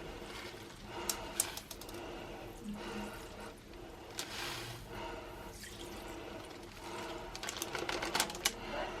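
Wet, sticky sounds of clear slime being worked and squished, with clusters of small sharp clicks and pops about a second in and again near the end.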